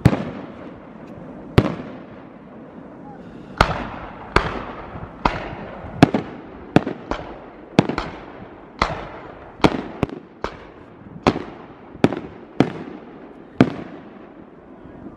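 Professional aerial fireworks bursting overhead: about seventeen sharp bangs at irregular intervals, few in the first seconds and then coming every half second to a second, each followed by a short fading rumble.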